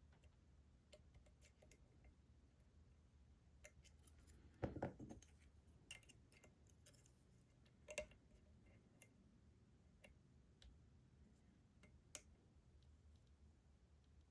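Lock picks working inside an ASSA Desmo slider lock under tension: scattered faint ticks and clicks of the pick and sliders, with a louder knock about four and a half seconds in.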